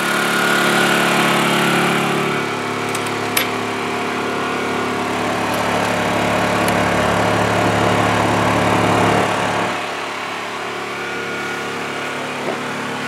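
Honda EU2000i inverter generator's single-cylinder four-stroke engine running steadily, louder while its quiet box stands open and becoming quieter once the box lid is shut a couple of seconds in. A sharp clack of the lid about three seconds in and small latch clicks near the end.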